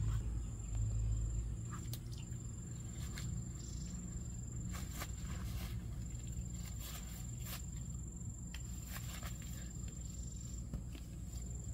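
Footsteps and rustling through grass and ferns, with scattered short crackles of leaves and stems being handled. A low rumble for the first second or so, and a steady high-pitched whine in the background that breaks off twice.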